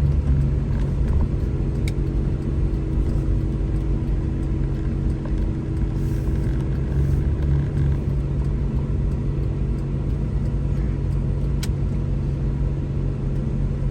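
Car driving, heard from inside the cabin: a steady low engine and road hum, with a sharp tick about two seconds in and another near the end.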